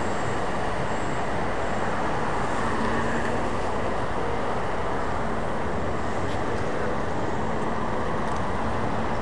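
Steady noise of busy city-avenue traffic: engines and tyres blending into an even rumble, with no single vehicle standing out.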